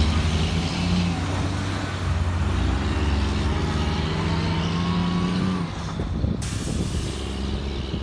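Mack Granite dump truck's diesel engine pulling away under load, its pitch slowly rising, then dropping at a gear shift about five and a half seconds in, the sound easing as the truck moves off.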